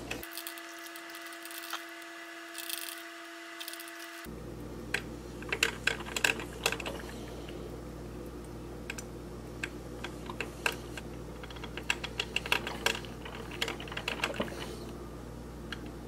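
Mr. Coffee Jr. drip coffee maker brewing: irregular crackling clicks and pops, coming in clusters, as its heater pushes hot water up to the filter basket.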